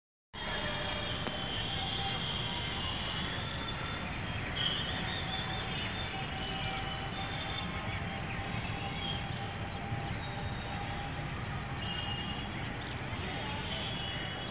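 Steady outdoor background noise with high, wavering chirps; a faint steady tone joins in about halfway through.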